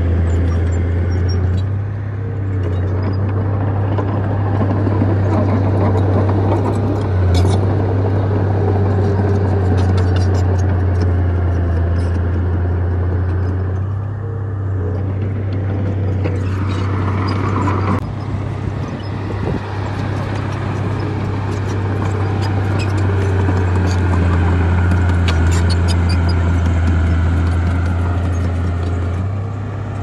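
Heavy diesel earthmoving machinery running steadily, a deep engine drone with scattered clicks and knocks on top. A brief rising whine comes a little past halfway.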